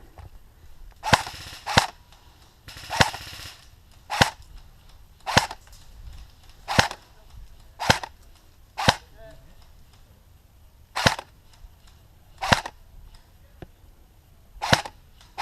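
Airsoft guns firing single shots, about a dozen sharp pops spaced a second or so apart.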